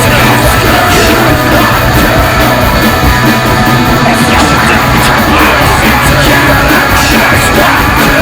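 Loud, distorted heavy rock music with shouted vocals, which cuts off suddenly just after the end.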